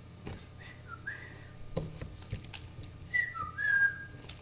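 A person whistling two short phrases, each a quick note that dips and then rises. The first comes about a second in, the second near three seconds in, with a few faint clicks between.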